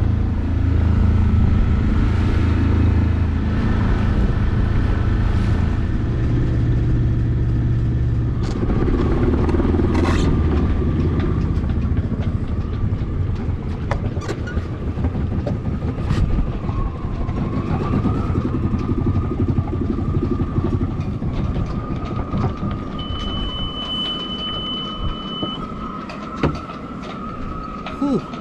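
Small sailing boat's engine motoring steadily, louder for the first dozen seconds and quieter after. A short high steady beep sounds about 23 seconds in.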